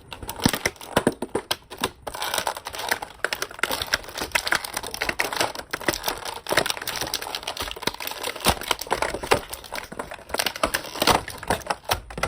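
Plastic packaging tray and box being handled as an action figure is pried out: a dense, irregular run of sharp plastic clicks, crackles and rustles.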